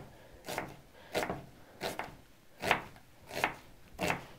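Kitchen knife slicing an onion half into half rings, each cut knocking through onto a wooden cutting board: about six even cuts, one every two-thirds of a second.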